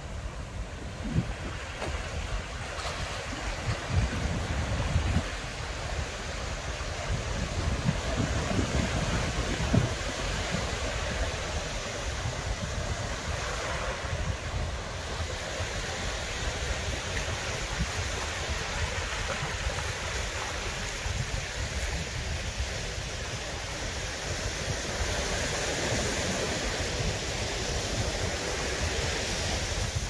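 Ocean surf washing steadily onto the beach, with wind buffeting the microphone in gusts that come hardest in the first ten seconds or so.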